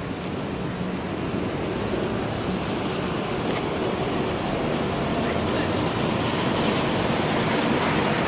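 Freight train hauled by a DE10 diesel locomotive approaching, its engine and running noise growing steadily louder.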